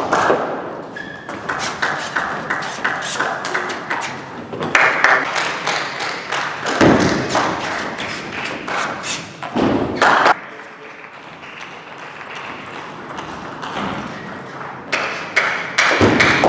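Table tennis ball being hit back and forth in a fast rally: quick sharp clicks of the ball off the bats and the table. The hitting stops for a few seconds about two-thirds of the way in, and a new rally starts near the end.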